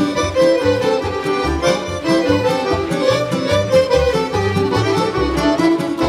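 Live folk orchestra playing lively Serbian folk dance music from Srem, with fiddles over a steady, rhythmic double-bass line.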